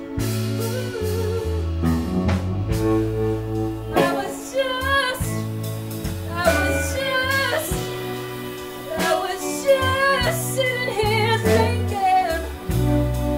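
Live band with a female lead singer: a soulful vocal with wide vibrato over electric guitar, bass and drums. The voice comes in strongly about four seconds in, over a sustained instrumental backing.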